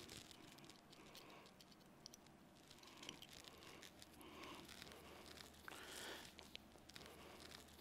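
Near silence, with faint rustling and a few light clicks as CV boot clamp pliers are worked on a boot clamp on the rubber CV boot.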